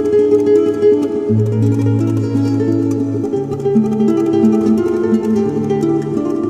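Spanish guitar music: a plucked melody over lower bass notes.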